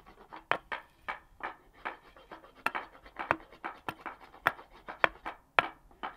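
A hand tool working a piece of wood, shaping a traditional tool: a regular run of short, sharp scraping strokes, about two a second.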